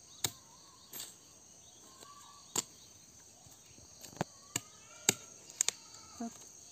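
Machete blade chopping into the soft, fibrous pith of a rotting sago palm stump: about eight sharp strikes at an uneven pace, two coming close together near the end. A steady high insect chirring runs behind.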